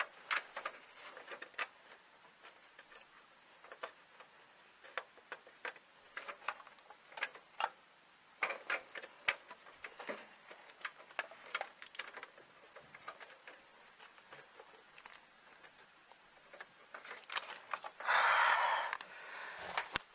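Scattered small clicks and ticks of plastic power connectors and cables being handled and pushed into place inside a desktop computer case. Near the end, a louder rustle of handling noise.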